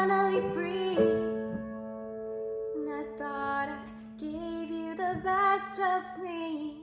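A woman singing a slow song over held piano-keyboard chords, her voice dropping out for about a second before coming back in.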